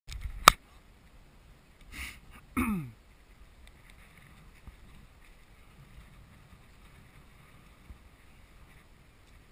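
Rubbing on the head-mounted action camera ends in a sharp knock about half a second in. Around two and a half seconds in comes a short call that falls in pitch. Otherwise there is only faint wind and shuffling.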